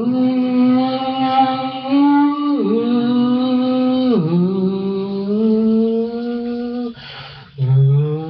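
A man singing long wordless held notes, one voice sliding down in pitch twice, with a short break about seven seconds in before the next note.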